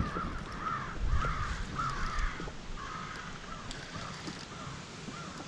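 A bird calling several times in quick succession over the first three seconds, with a low rumble underneath.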